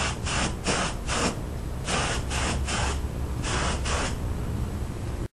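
Paint spray gun hissing in about ten short bursts as the trigger is pulled again and again, in three quick groups, over a steady low hum. The paint is thinned so much that, by the painter's own account, it is spraying out like crazy.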